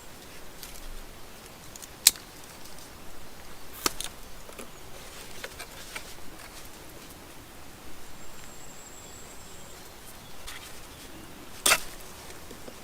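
Swiss Army knife cutting small side branches off a forked wooden stick: three sharp cracks as twigs come off, with quieter scraping and whittling of the blade on the wood between them.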